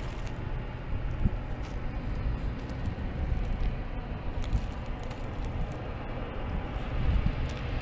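Steady low engine rumble with a few faint clicks and knocks over it.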